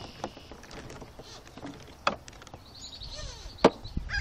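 Sharp knocks and rattles from handling an RC sailboat with a phone on board as it is carried, the loudest about two seconds in and again about three and a half seconds in. Birds chirp in the background.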